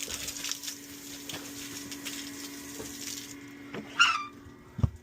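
Water running from a water-station fill hose with a steady hiss that cuts off sharply about three seconds in, then a short squeak and a thump.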